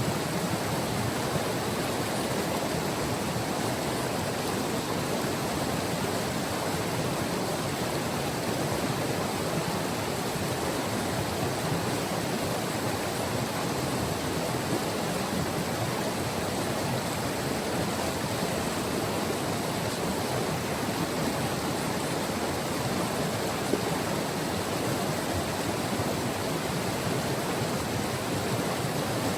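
Glacier-fed White River flowing, a steady, unbroken rush of water.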